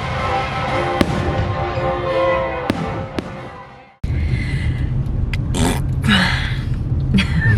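Live orchestra music with fireworks banging over it, three sharp bangs in the first three seconds, fading out about four seconds in. Then a low rumble with a few short rustles, as inside a car cabin.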